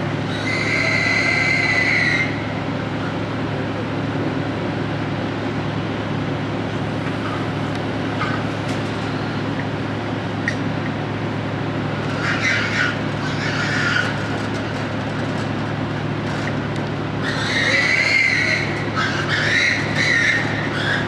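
Pigs squealing and screaming in distress inside a livestock transport truck, in three high-pitched bouts: near the start, in the middle and near the end. Under them runs the steady low hum of the truck's idling engine.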